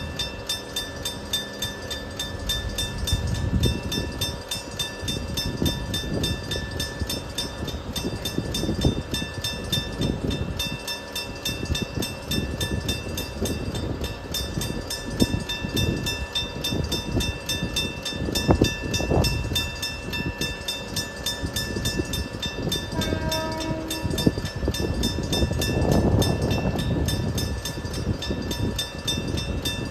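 Electric-bell level-crossing warning bell ringing continuously with a rapid, even striking, while a train rumbles and clatters over the crossing.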